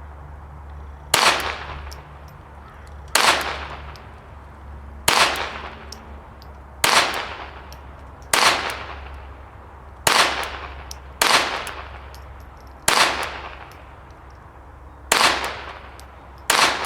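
Glock 44 .22 LR pistol fired ten times in slow, deliberate fire, about one shot every one and a half to two seconds. Each shot is a sharp crack with a short ringing tail.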